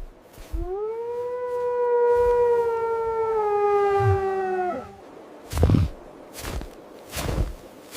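An animal's long, howl-like call: one held note that rises at the start, sinks slowly and stops abruptly about five seconds in. A few short dull thumps follow.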